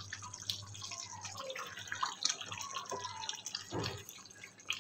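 Thick chicken korma gravy simmering in a pan, with many small bubbles popping and blipping. About four seconds in, a wooden spatula knocks into the pan as stirring begins.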